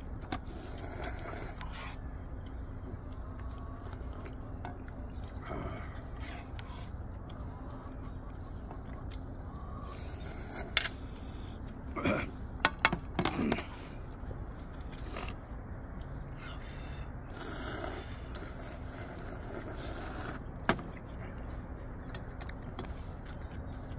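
People eating ramen: soft slurping and mouth sounds, with metal tongs clacking and scraping against the pan in a cluster of sharp clicks about halfway through as noodles are served. A steady low background noise runs underneath.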